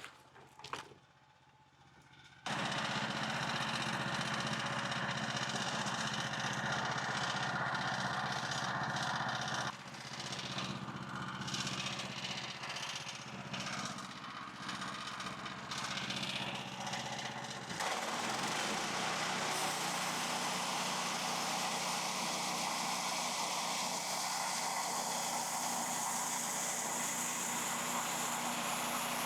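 Gas engine of a MechMaxx portable bandsaw sawmill running steadily at speed, starting abruptly a couple of seconds in. Its sound shifts sharply twice, with a stronger high hiss in the last part.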